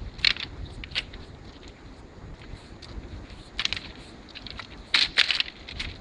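Footsteps crunching on the loose stone ballast of a railway track: uneven crunches, with the loudest pair about five seconds in, over a low steady rumble.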